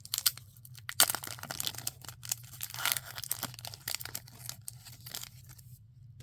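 A trading card pack's wrapper being torn open and crinkled in the hands, a busy run of tearing and crackling that stops near the end.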